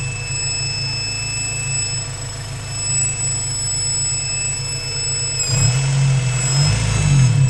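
Honda B18C6 1.8-litre VTEC four-cylinder engine running near idle with a steady high-pitched whine over the engine note. About five and a half seconds in, the engine note picks up and wavers briefly, and the whine dips slightly in pitch with it.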